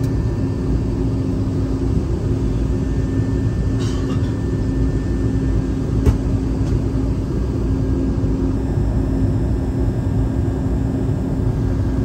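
Steady interior drone of a passenger plane's cabin: a low rumble with a constant hum. Two faint clicks stand out, about four seconds and six seconds in.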